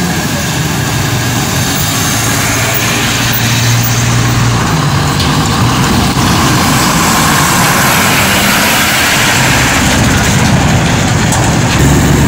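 Heavy trucks' engines running at low speed as they pass close by: a steady low engine hum, with tyre and road noise swelling in the second half.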